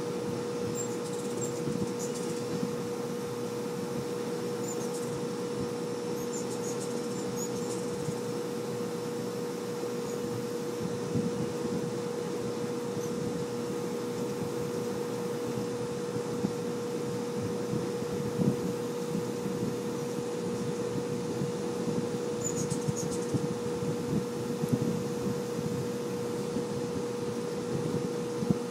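Many hummingbirds around a feeder: a restless whirring of wings, with clusters of high, short chirps in the first few seconds and again later on, all over a constant low hum.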